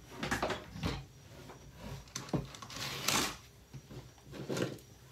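Plastic casing and parts of a broken-open Bissell handheld vacuum cleaner knocking and clattering irregularly as they are handled, with a short rasping scrape about three seconds in.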